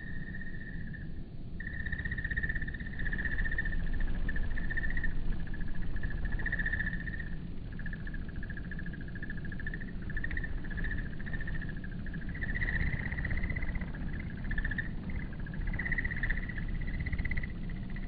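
Dusk chorus of calling animals: a continuous high-pitched trilling that wavers and breaks briefly, over a steady low rumble.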